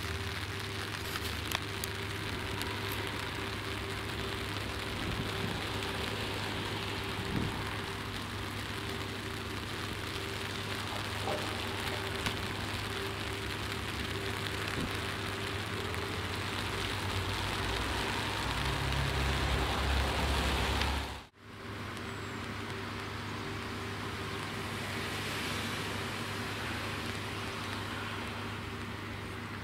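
Steady rain falling, an even hiss with a low hum underneath. It drops out briefly about two-thirds of the way through.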